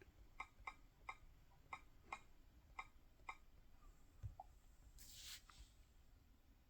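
Near silence in a small room, with about ten faint, light clicks at uneven spacing over the first three seconds and a brief soft hiss about five seconds in.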